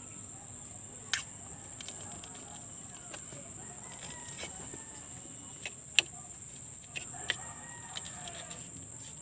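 A steady high-pitched insect drone, with a few sharp clicks of a metal spoon against a ceramic bowl as fruit is prepared. The loudest click comes about six seconds in.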